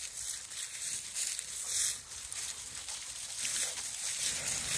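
Dry fallen leaves rustling as a Labrador puppy scuffles and roots through them, unevenly, with a few louder swells.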